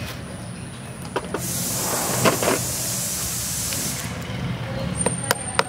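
A steady spraying hiss that starts and stops sharply and lasts about two and a half seconds, then a few sharp scraping clicks near the end as a tool scrapes caked grease off the exhaust fan's motor housing.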